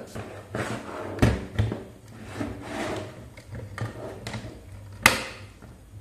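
Handling noises on a workbench: a string of light knocks and rustles, with one sharper click about five seconds in, over a steady low hum.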